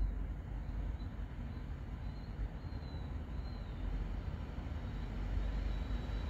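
Low, steady rumble of a train approaching along the line, still some way off, with a faint high wavering whistle about two to three seconds in.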